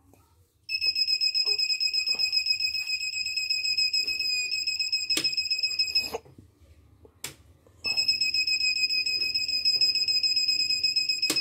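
CNY portable embroidery machine's buzzer beeping non-stop, a high-pitched tone pulsing very fast, in two long stretches broken by a pause of about two seconds with a few clicks. This is the machine's continuous-beep fault, in which it will not load.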